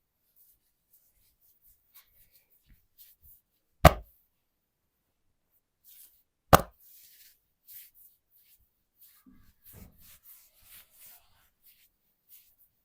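Two sharp, loud strikes about two and a half seconds apart during a head and back massage, with soft rustling of hands on skin and cloth between and after them.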